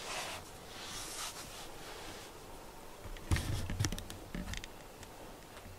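Quiet rustling and handling noise, with a cluster of light knocks and scrapes a little past the middle.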